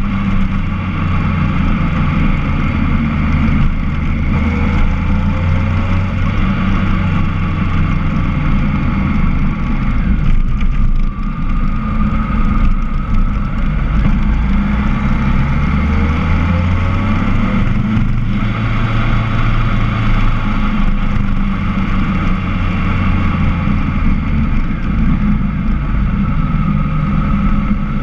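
Motorcycle engine running at speed with wind noise over the microphone; the engine note rises and falls with the throttle through the bends, dipping briefly about eleven seconds in.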